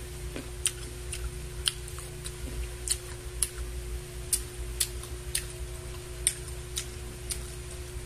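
Sharp ticks roughly twice a second, some louder than others, over a steady low hum.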